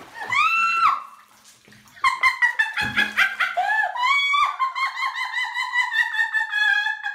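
A high-pitched voice: one long wailing cry that rises, holds and falls, ending about a second in. After a short pause comes a fast run of short high cries whose pitch slowly sinks.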